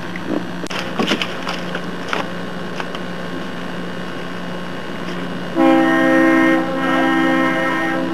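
Multi-note air horn sounding two long steady blasts in a chord, the second held longer, starting about five and a half seconds in. A few light knocks come before it, about a second in.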